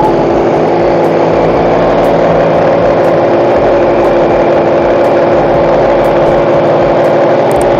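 Small two-stroke portable generator engine running at a steady, even speed on its test run just after a carburetor rebuild.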